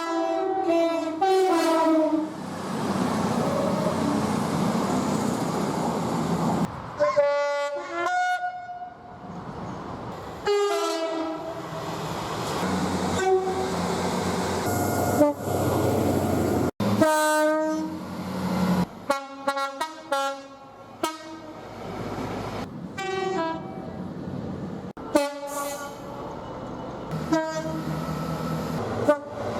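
A rapid string of British train two-tone horns: many short blasts, stepping between a high and a low note, cut together from different recordings. Between blasts comes the rushing, rumbling noise of trains passing at speed.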